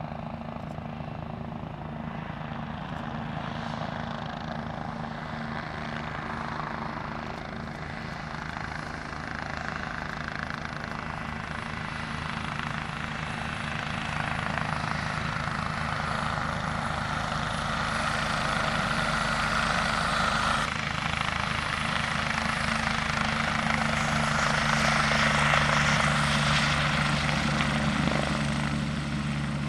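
UH-72 Lakota twin-turbine helicopter coming in low and hovering. The rotor beat and turbine whine grow steadily louder and are loudest about 25 seconds in, then ease off slightly.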